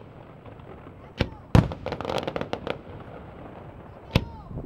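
Aerial firework shells bursting: a bang about a second in, a louder one just after it, a spell of crackling, then another bang near the end.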